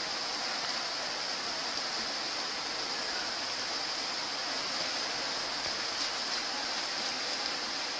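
Steady rush of river rapids.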